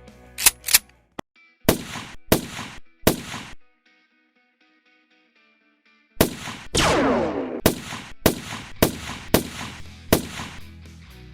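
Blaster shots in quick volleys over background music. Partway through, the sound cuts out completely for about two and a half seconds. It comes back with one loud hit that sweeps downward in pitch, then more rapid shots.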